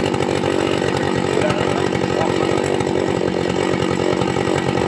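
Homemade RC truck's small electric motor and gearbox running steadily with a continuous rapid buzz.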